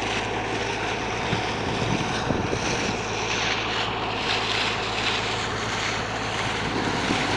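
Pressure-washer water jet spraying, a steady rushing hiss over the even hum of the pump motor.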